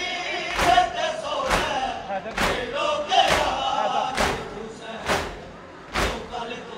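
A crowd of mourners chanting and wailing together, with sharp rhythmic thumps about once a second from chest-beating (matam) in unison.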